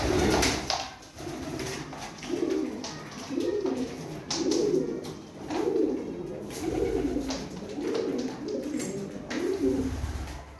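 Domestic pigeons cooing over and over, a low coo about once a second, with a few light clicks among them.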